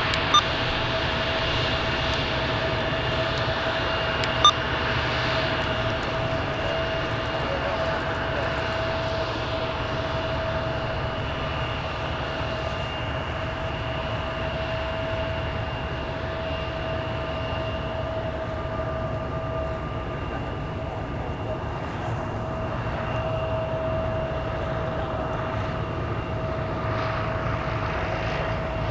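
Embraer E175's twin GE CF34 turbofans at taxi idle: steady engine noise with a constant whine. Two brief clicks in the first few seconds.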